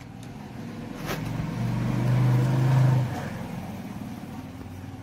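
A motor vehicle engine passing by, growing louder to a peak about three seconds in and then fading away, with a single short click about a second in.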